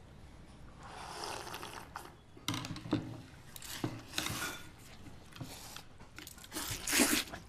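Two people eating bowls of noodle soup: a string of slurps and chewing sounds, the loudest slurp near the end.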